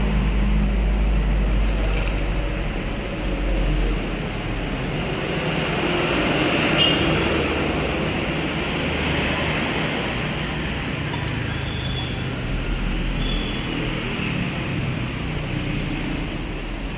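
Steady road traffic noise, with a low rumble of vehicles going by at the start and again near the end, and a few light clicks.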